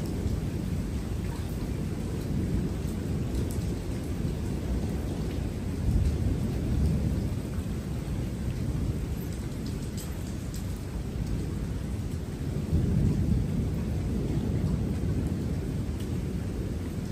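Thunder rumbling low and continuously, swelling louder about six seconds in and again near thirteen seconds, over faint rain.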